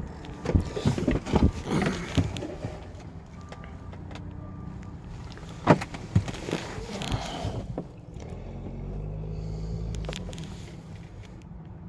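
A vehicle's reversing beeper sounding in short beeps, with scattered clunks and knocks and a sharp knock about halfway through. Near the end an engine rumbles by, swelling and fading.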